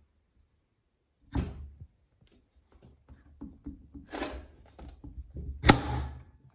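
Heavy steel gear of a Volvo TGB portal axle being set by hand onto its splined shaft in the hub housing: scattered metal clunks and scrapes, a dull thump about a second and a half in, and a sharp metallic knock about a second before the end, the loudest sound.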